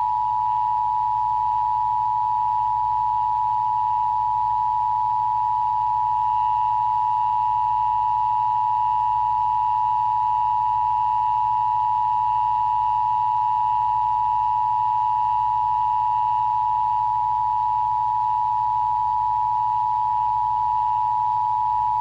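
Emergency Broadcast System Attention Signal: two steady tones of 853 Hz and 960 Hz sounded together as one unbroken dual-tone drone at a constant level, the alert tone of an EBS test.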